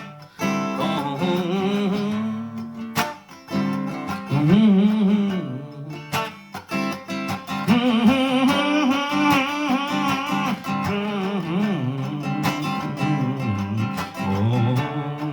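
Acoustic guitar strummed, with wordless singing over it in long held notes that slide up and down in pitch.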